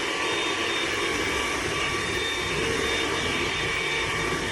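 Hoover ONEPWR Evolve Pet Elite cordless stick vacuum running steadily: a constant motor whine over the rush of air through the cleaner head.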